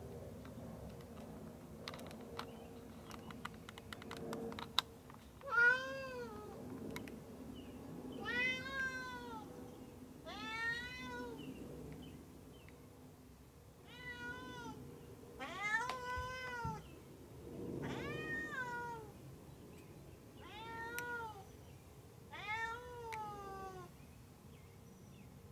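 Cat meowing to be let in: about eight meows a couple of seconds apart, each rising and then falling in pitch. A few light clicks in the first seconds.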